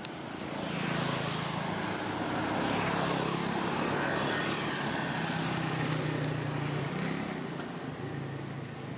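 Road traffic: motor vehicles driving past, a rush of engine and tyre noise that swells about a second in, holds for several seconds and eases near the end.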